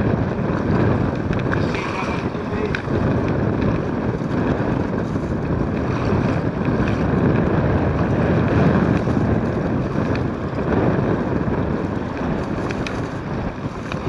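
Strong wind buffeting the microphone in a steady rumble, over choppy river water splashing against a kayak hull.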